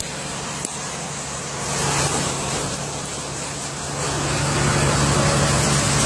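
Heavy truck engine running steadily, a low even hum, with street traffic noise; it grows louder about four seconds in.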